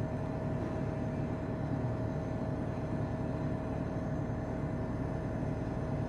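Steady mechanical hum with a constant high whine, unchanging throughout, like an engine or machine running.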